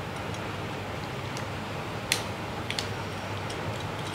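Steady low room hum with a few light clicks and taps, one sharper about two seconds in, from metal bangles being handled.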